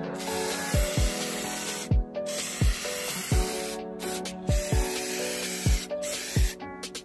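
Aerosol can of thick grey primer hissing as it sprays in several long bursts with short breaks between them. Background music with a steady beat plays under it.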